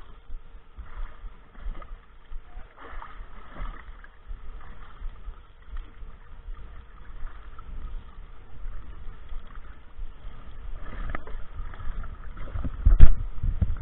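Water moving against a small boat's hull over a steady low rumble, with a couple of knocks near the end, the second one loud.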